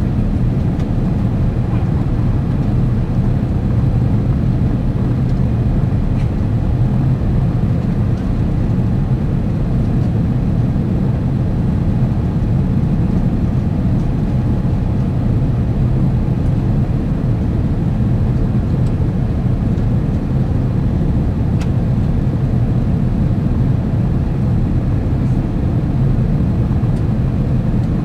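Steady, low cabin drone of an Airbus A350-900 in flight: its Rolls-Royce Trent XWB engines and the airflow, heard from a window seat behind the wing.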